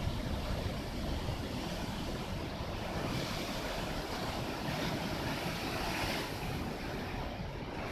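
Rough sea and strong wind from a distant typhoon: waves washing with wind rumbling on the microphone, and a wave surging and hissing from about three seconds in until about six seconds in.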